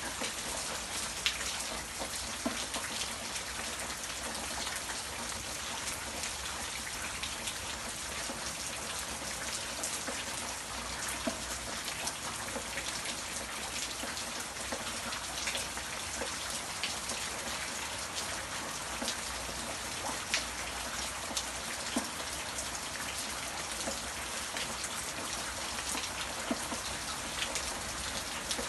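Steady rain falling: an even hiss with scattered sharper drop impacts standing out here and there.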